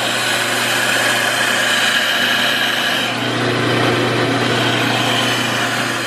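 Store bulk coffee grinder running, grinding coffee beans into a paper bag: a steady motor hum under a dense, even grinding noise.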